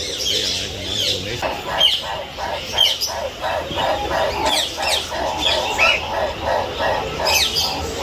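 Many aviary birds chirping and calling together, with quick falling whistles and, from about a second and a half in, a fast repeated lower call.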